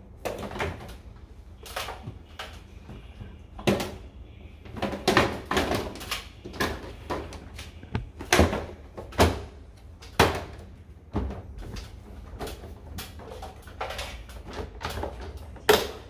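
Plastic front cover of a Daikin i-Smile wall-mounted air-conditioner indoor unit being snapped back on and its hinged front panel handled: an irregular run of sharp plastic clicks and knocks.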